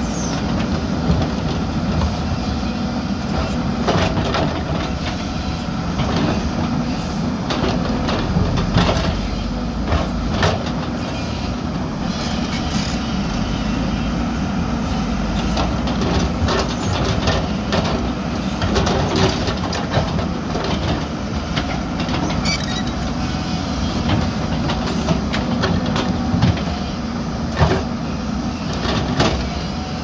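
Hyundai 220LS crawler excavator's diesel engine running steadily under load while its bucket digs into dirt and rock. Scattered knocks and clatters of stones scraping and striking the bucket recur throughout.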